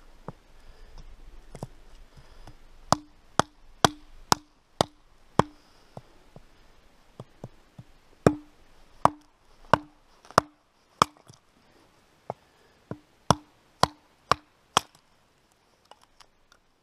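Hatchet chopping a short log into kindling on a wooden chopping stump. There are three runs of quick, sharp chops, roughly one to two a second, and each chop has a brief low ring from the wood.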